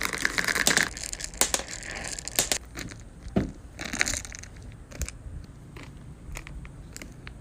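Irregular crinkling and crunching handling sounds: scattered sharp clicks and short rustles, busiest in the first half and thinning out after about four seconds.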